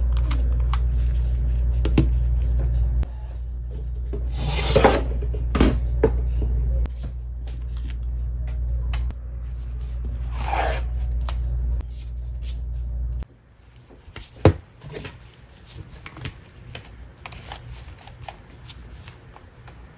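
Small clicks, taps and rubbing scrapes from handling a Nintendo Switch Joy-Con's plastic parts and tools during the repair. A low steady hum underneath cuts off suddenly about two-thirds of the way through.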